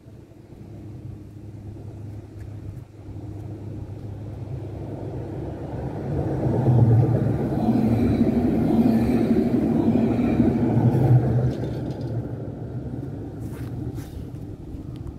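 Tram passing close by: a low rumble with a steady hum that builds, is loudest from about six to eleven seconds in, then fades.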